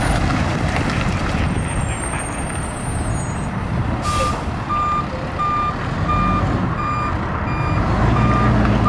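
Diesel fire engine running and pulling away, with tyre and road noise and its engine note rising near the end. From about four seconds in, a steady electronic beeping sounds, about three beeps every two seconds.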